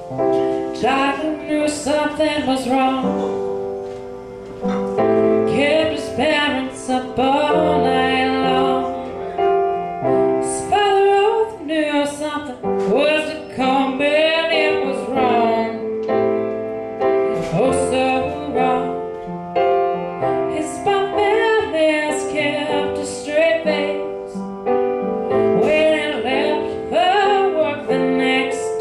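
A young woman singing a ballad into a microphone while accompanying herself on an upright piano.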